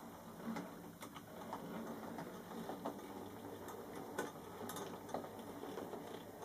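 4mm scale EM gauge model goods train running along the track, with faint irregular clicks of wheels over rail joints over a light mechanical whir.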